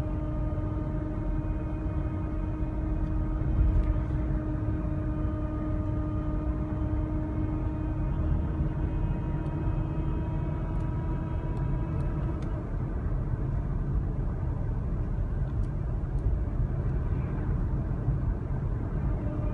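Transmission whine from a 2017 Toyota Highlander on the move, over a steady low road rumble: a high tone with overtones that creeps slowly up in pitch, then fades out about two-thirds of the way through. The whine is the sign of a transmission fault, for which the dealer ordered a replacement transmission.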